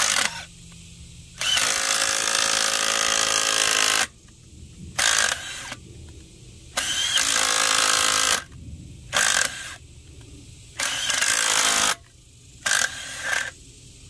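Power drill driving a bottoming tap into a drilled hole in a cast iron anchor, cutting threads in short start-stop runs: three longer runs of one to two and a half seconds and several brief blips in between.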